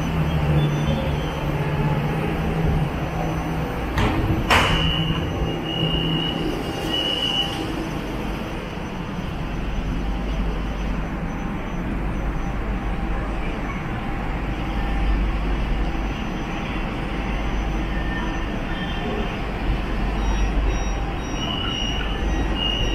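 Siemens Inspiro electric metro train running, heard from inside the car: a steady rumble with a low hum early on, one sharp knock about four seconds in, and a few short high-pitched tones, with the rumble growing deeper after about nine seconds.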